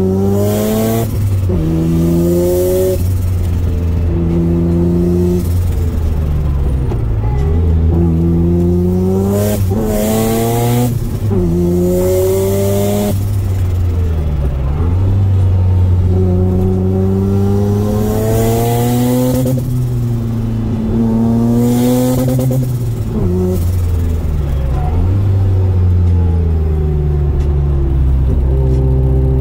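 A Mazda RX-7 FD's single-turbo 13B twin-rotor rotary engine heard from inside the cabin, accelerating hard through the gears again and again. Its pitch climbs on each pull and drops at each gear change, with a short burst of hiss at many of the shifts. Near the end it settles into a steady cruise.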